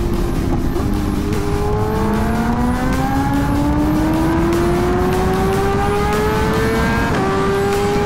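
BMW S1000RR inline-four engine accelerating under load, its pitch climbing steadily for several seconds. About seven seconds in, an upshift brings a brief drop in pitch before it climbs again.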